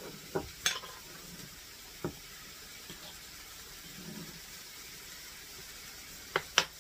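Diced chicken sizzling faintly in a skillet over a gas burner, with a few light clinks of a metal measuring spoon against a glass spice jar, two of them close together near the end.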